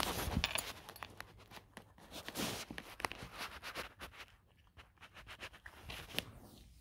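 Scattered clicks and light taps of a long-haired cat eating fried chicken off a hardwood floor and then moving about on it; the loudest noises come in the first second.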